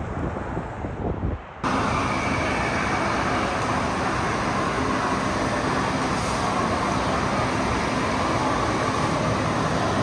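Wind gusting on the microphone, then, under two seconds in, an abrupt switch to the steady noise of a car's cabin with the engine running.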